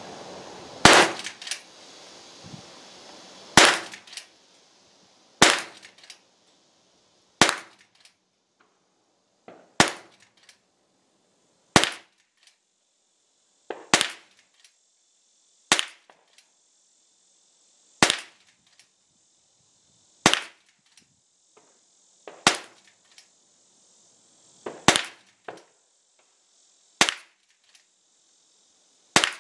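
Henry lever-action .22 LR rifle firing about fourteen sharp shots, evenly spaced roughly every two seconds, with small clicks between them as the lever is worked.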